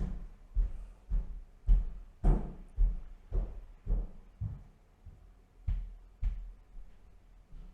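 Footsteps going up a staircase, about two steps a second, growing fainter near the end.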